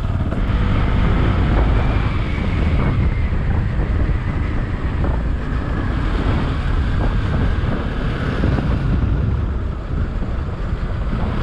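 Wind buffeting a motorcycle-mounted camera's microphone while riding at about 45–60 km/h, with the Bajaj Pulsar's engine running underneath.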